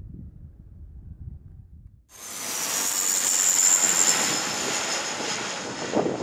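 Low wind rumble on the microphone, then, from about two seconds in, the loud rushing noise of a Dash 8 twin-turboprop airliner on final approach, with a strong high whine that slowly sinks in pitch.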